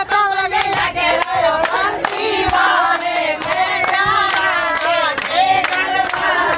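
A group of women singing a song together, with rhythmic hand-clapping keeping the beat.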